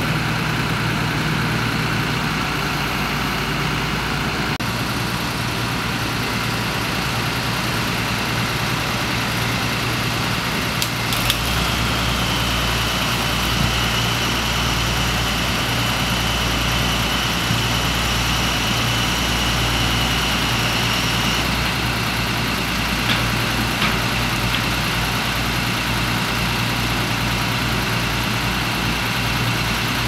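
Engine of heavy tree-service equipment idling steadily with a low hum, its pitch shifting slightly a couple of times, and a faint high whine through the middle.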